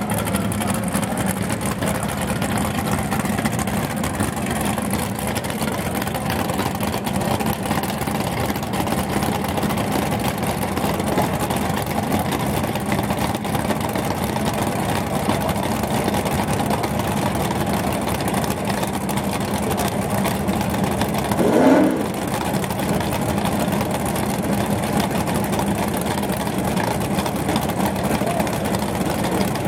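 A second-generation Chevrolet Camaro drag car's engine idling steadily at the starting line, with one brief rev blip about twenty-one seconds in.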